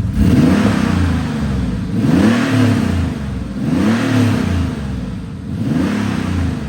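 Porsche 964's air-cooled flat-six exhaust, with a Dansk G-pipe in place of the secondary muffler, heard from about 20 feet away. It is blipped four times from idle, each rev rising and falling straight back.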